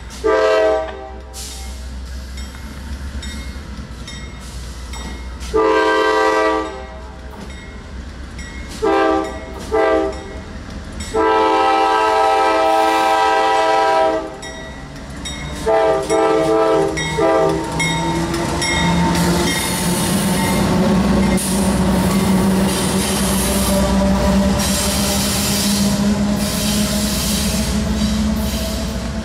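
Diesel freight locomotive's air horn sounding a series of blasts of varying length, one held for about three seconds. The train then rolls past with rising rail and wheel noise and some wheel squeal.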